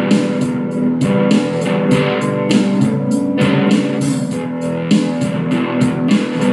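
Electric guitar played through a small Vox combo amp, strumming chords in a steady rhythm.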